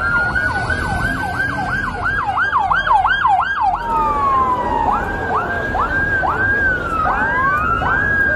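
Emergency vehicle sirens: a fast yelping siren sweeping up and down about two to three times a second, then, after a cut a little under four seconds in, a slower wailing siren with a long falling tone, joined near the end by a second siren overlapping it.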